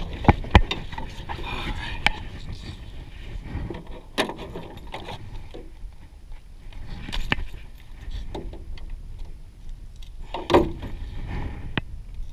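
Scattered knocks and clatter of handling in a small rowboat as a caught trout is unhooked and brought aboard, over a low steady rumble. The loudest knock comes near the end.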